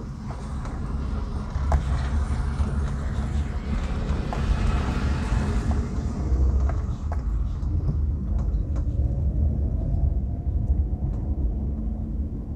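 Road noise heard inside a moving car's cabin: a steady low rumble from the tyres and engine, with scattered knocks and rattles as the car drives over a rough, broken road surface.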